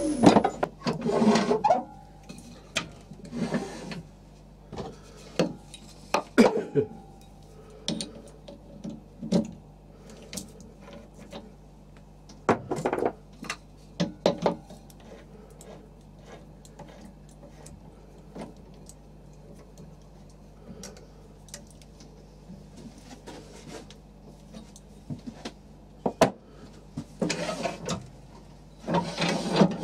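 Wood lathe work stopping: a last few seconds of gouge cuts on the spinning wooden bowl. Then scattered knocks, clicks and rubbing as the bowl and gouge are handled on the stopped lathe, over a steady low hum.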